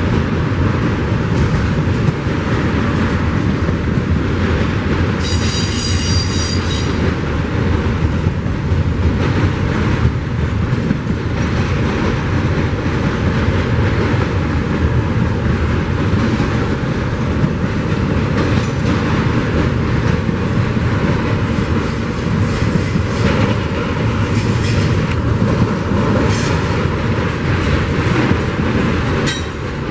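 Doublestack intermodal freight train of container well cars rolling past close by, a steady loud rumble of wheels on the rails. A high-pitched squeal from the wheels lasts a couple of seconds about five seconds in.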